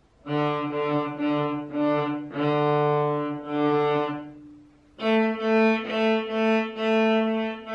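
A child playing a small cello, bowing a simple beginner's piece on the open strings: a run of bowed notes on the open D string, then, about five seconds in, quicker repeated strokes on the open A string.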